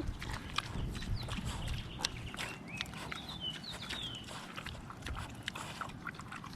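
Pigs eating vegetables handed to them: scattered crunching and chewing clicks with snuffling noise. A few short, high chirps come about halfway through.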